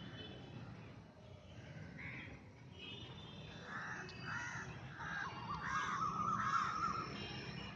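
Birds calling: a run of about six short calls, one after another, starting a few seconds in, with a wavering trill laid over the last of them.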